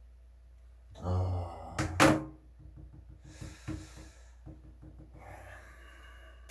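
A man's short wordless vocal sound about a second in, followed by two sharp knocks close together, the loudest sounds; then soft hissy noises and a few faint ticks.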